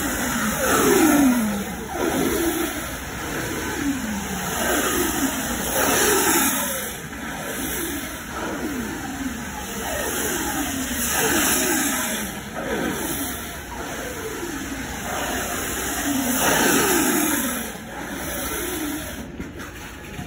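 A motor revving over and over, its pitch dropping after each rev, about once a second, over a loud noisy roar that swells and fades.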